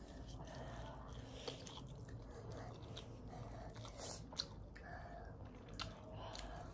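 Faint chewing and slurping of ramen noodles close to the microphone, with a couple of sharp clicks, the louder one about four seconds in.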